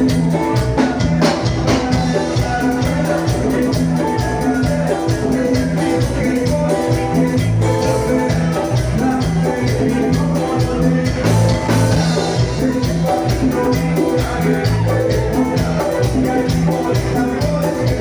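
Latin tropical dance music played by a band, with a steady beat, a bass line and hand percussion.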